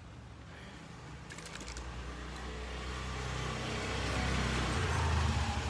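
A motor vehicle going past, its engine drone and rumble swelling over a few seconds and peaking near the end, with a few light clicks about a second and a half in.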